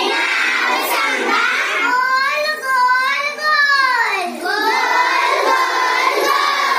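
A group of young girls singing together, a Marathi action song about geometric shapes, with melodic rising and falling lines.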